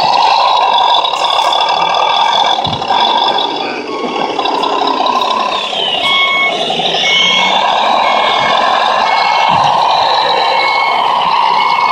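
Reversing beeper of a radio-controlled model truck or work machine: a regular series of short high beeps, a little more than one a second, starting about halfway through, over a steady noisy background.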